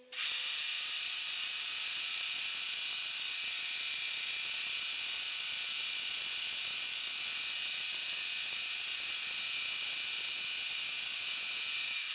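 Milling machine spindle running steadily with a high whine while a small cutter in the drill chuck spot-faces a cast eccentric strap. The sound starts and stops abruptly.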